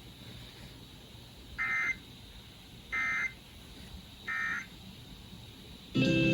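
EAS end-of-message data signal: three short, identical bursts of warbling digital data tones, a little over a second apart, marking the close of the emergency alert. Near the end a louder, brief burst of broadcast audio cuts in.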